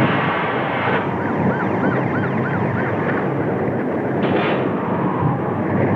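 Loud, steady roar of tornado wind. A siren-like tone rises and falls about three times a second, starting about a second in and fading out after about four seconds.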